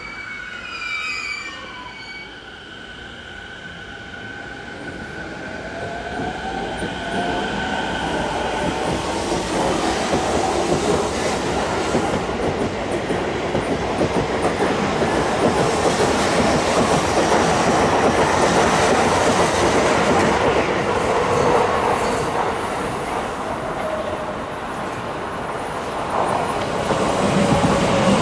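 Electric commuter train pulling out of the platform and speeding up. A whine from its motors rises in pitch, and the wheel and running noise grows louder as the cars go by. Near the end another train passes close by with a heavier rumble.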